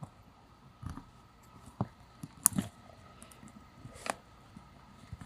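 A few faint, scattered clicks and rustles of small objects being handled.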